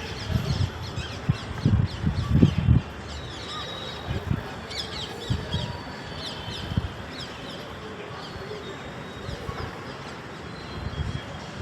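Small birds chirping repeatedly in the background, with a run of low thuds over the first three seconds and a few more up to about seven seconds in.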